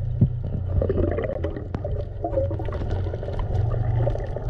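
Underwater sound picked up by a camera in its waterproof housing: a steady low hum with muffled gurgling and warbling, and scattered sharp clicks.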